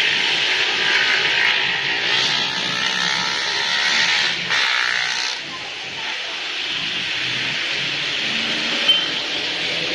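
Street traffic on a wet road: cars and motorbikes passing with a steady hiss of tyres on water. A short sharp click near the end.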